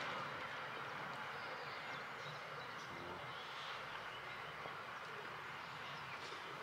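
Faint, steady rolling noise from the wheels of a freight train of double-deck car-carrier wagons moving away along the track.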